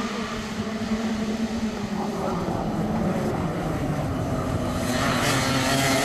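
Several two-stroke racing kart engines running hard as a pack of karts passes, a steady buzzing whine that grows louder about five seconds in as a kart comes closer.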